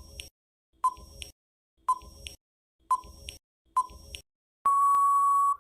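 Countdown timer sound effect: a short electronic beep about once a second, then a longer steady beep of about a second near the end, marking that time to answer is up.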